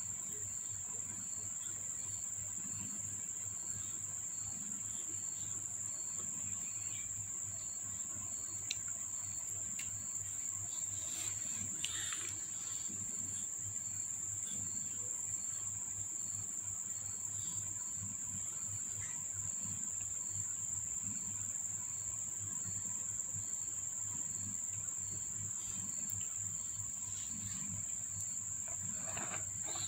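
A steady high-pitched drone with a faint chirp repeating about twice a second, like insects calling, over an even low hum.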